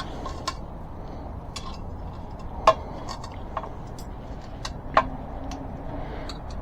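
Light metallic clicks and clinks of ebike wheel parts and tools being handled, with two louder clinks, one near the middle and another about two seconds later.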